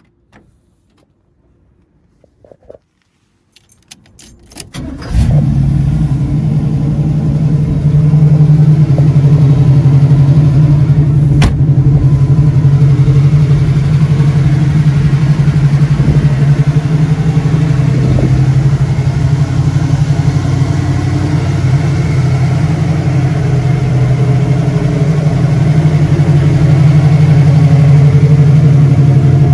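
1979 Chevrolet Camaro Z28's V8 engine being started. After a few faint clicks, it cranks briefly about four to five seconds in, catches, and then runs steadily at idle.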